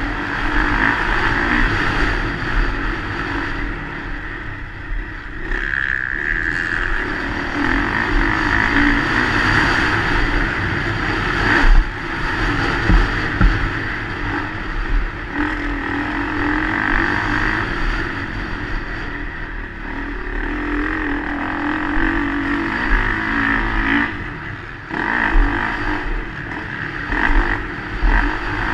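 Motocross bike engine racing over a dirt track, revving up and dropping back as the rider works the throttle and gears, heard from a helmet-mounted camera. A few sharp knocks from bumps and landings cut through it.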